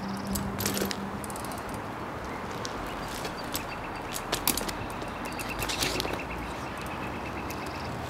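BMX bike on an asphalt street: tyres scuffing and rolling, with scattered sharp clicks and knocks from the bike as the rider pivots and balances. From about halfway a faint, fast, even ticking runs on.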